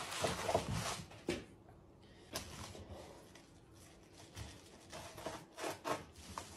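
A carpet tile rustling as it is flipped and laid down on a wooden workbench, then scraping and rubbing as a utility knife is worked through the carpet, with a few light knocks.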